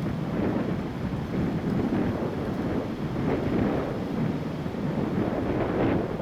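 Strong gusting wind buffeting the microphone: a continuous low rumble that swells and eases with each gust.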